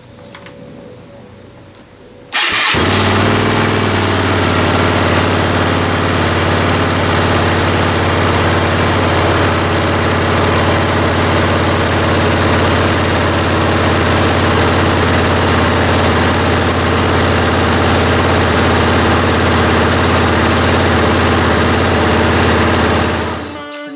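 A motorcycle's electric fuel pump hums faintly as it primes the fuel system. About two seconds in, the engine starts and settles into a steady idle, then cuts off abruptly near the end.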